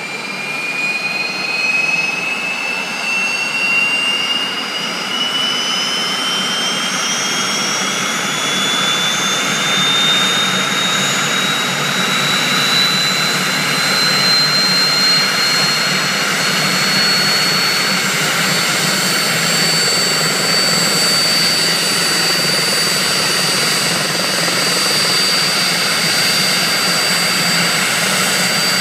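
Small turbine helicopter running on the ground as its engine spools up: a turbine whine rises steadily in pitch for about eighteen seconds, then holds steady over the continuous rush of engine and rotor.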